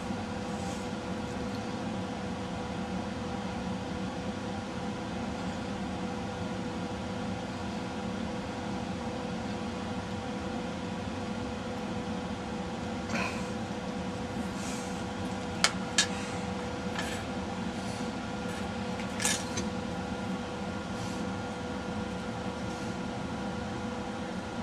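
Steady mechanical hum with a constant tone, like a small fan or motor running. A few faint short clicks come in the middle stretch while a tiny surface-mount diode is held with tweezers and soldered onto the board.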